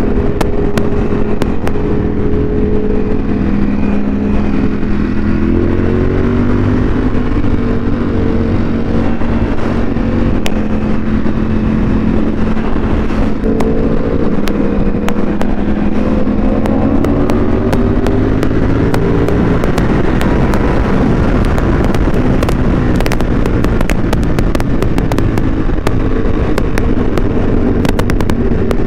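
Ducati Panigale V4 superbike's V4 engine running hard under load, its pitch rising and falling as the rider works the throttle and gears, over a steady rush of wind noise. In the second half the exhaust crackles with rapid pops on the overrun.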